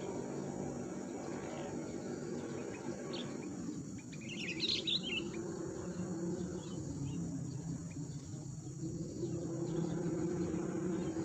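A short burst of bird chirps about four and a half seconds in, over a steady drone of insects.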